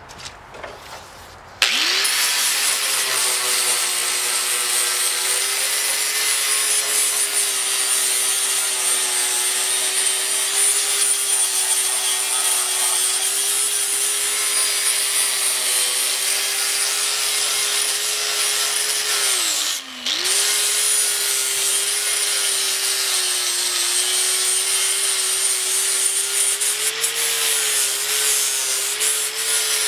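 Electric angle grinder with a flap disc grinding down weld seams on a steel truck tailgate: a steady motor whine with a hissing grind of disc on metal, starting about two seconds in. About two-thirds of the way through the grinder briefly lets up, its pitch sagging, then spins back up and keeps grinding.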